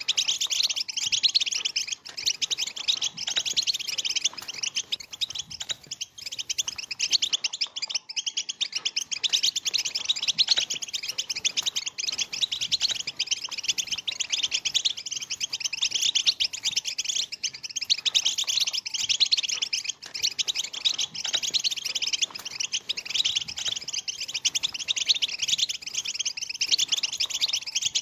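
A flock of European goldfinches twittering together: a dense, unbroken chatter of rapid high chirps and trills.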